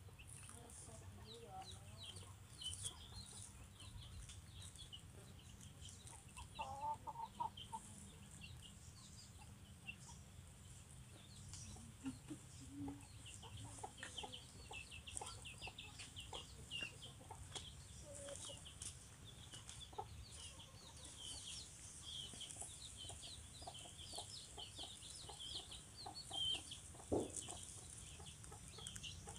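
Faint chickens chirping and clucking: a steady scatter of short, high peeps, with a few lower clucks now and then.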